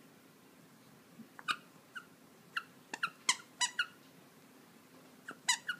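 Squeaky plush dog toy squeaking as a dog presses on it: a run of short, high squeaks over about three seconds, then two more near the end.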